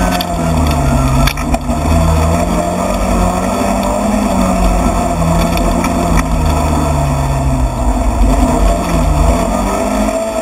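Rally car engine heard from inside the stripped cabin, running hard under load on a special stage, its pitch rising and falling repeatedly through the corners and gear changes. A few sharp knocks come about one and a half seconds in.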